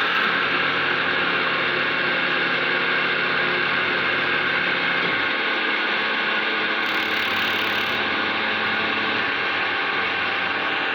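ТС-1200 wood lathe running, a steady machine whine over a hiss. About five seconds in, the low part of the sound drops away. A short, sharper high hiss comes from about seven to eight seconds in.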